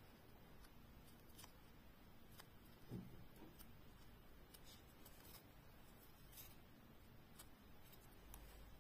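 Near silence with faint scattered clicks and a soft knock about three seconds in: a metal kiss-lock purse frame being handled while a flat stick tucks crocheted fabric into its channel.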